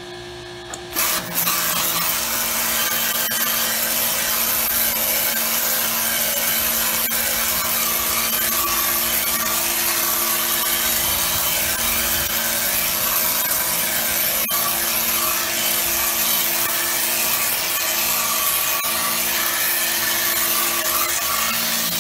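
Pressure washer running, its water jet blasting against a painted wooden board. The spray starts about a second in and then runs steadily, a hiss with a steady hum beneath it.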